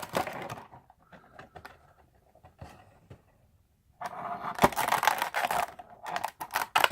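Cardboard box and plastic packaging of a Funko Pop vinyl figure being handled as the figure is taken out: rustling, scraping and crinkling with small clicks, a short burst at first, a quiet pause, then steady handling noise for the last three seconds.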